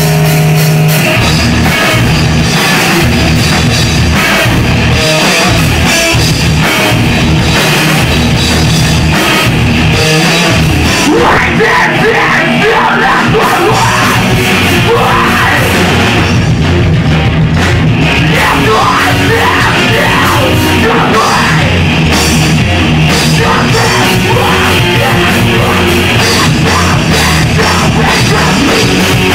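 Loud live heavy rock band playing: drum kit and amplified instruments in a dense, driving mix, with yelled vocals coming through about eleven seconds in.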